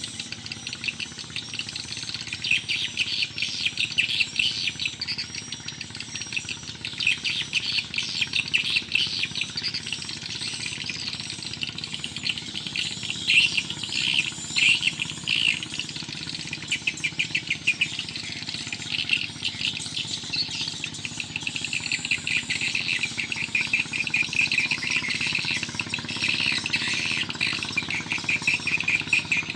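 Birds chirping and calling continuously in a dense chorus of rapid, high notes.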